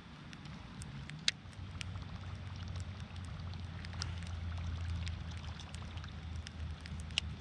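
A fishing reel winding in a topwater lure: scattered light ticks and drips of water, over a faint steady low hum.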